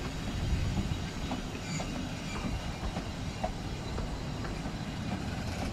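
Narrow-gauge railway carriages rolling slowly past, a steady low rumble with scattered clicks from the wheels running over the track.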